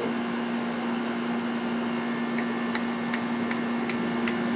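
A steady mechanical hum with hiss, joined about halfway through by light, evenly spaced ticks, about two or three a second.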